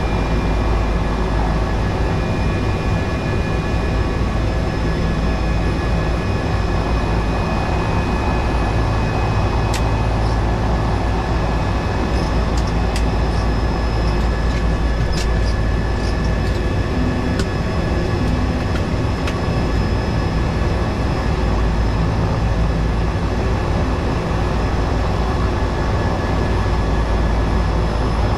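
Cessna 208B Caravan's Pratt & Whitney PT6A turboprop engine and propeller running steadily: a constant drone with a steady high whine over it. A few faint clicks come partway through.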